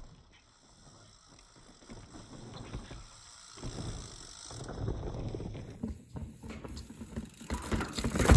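Hardtail mountain bike riding a dirt trail: tyre noise and rattling grow louder as it approaches and passes, about four to five seconds in. Then the tyres and frame clatter over rocks and roots in a string of sharp knocks, the loudest near the end.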